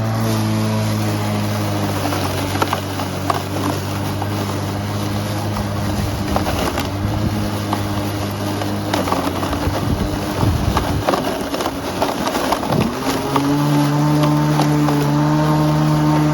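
Sun Joe 28-volt cordless 14-inch lawn mower's electric motor and blade running with a steady hum, with scattered ticks and clatter over it. About thirteen seconds in, the pitch dips and then climbs to a higher steady hum as the mower kicks up into its high-speed mode, which it does when it meets thick grass.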